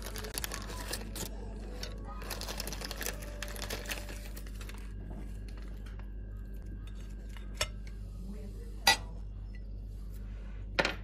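Kitchenware being handled, with rustling early on and then sharp glass knocks as clear glass baking dishes are set down, the loudest about nine seconds in and another near the end.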